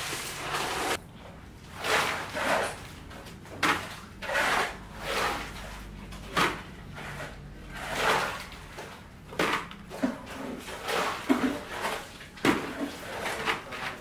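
Repeated scraping and scooping of wet concrete, about once every second or so, with a few short sharp knocks in between.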